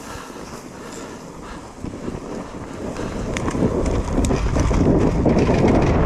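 Enduro motorcycle riding over rough ground, a noisy rumble with wind buffeting the microphone that grows much louder from about two seconds in, with scattered knocks.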